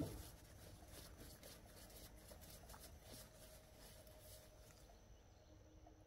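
Near silence: faint background noise with a few light ticks and a faint steady hum.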